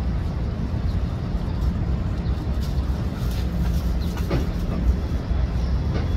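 Eight-car Long Island Rail Road Bombardier M7 electric train approaching, a steady low rumble, with a brief falling tone about four seconds in.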